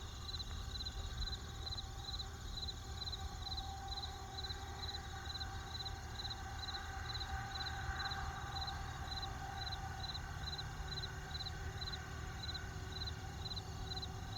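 Crickets chirping in a steady rhythm, about two chirps a second, over a low, steady rumble.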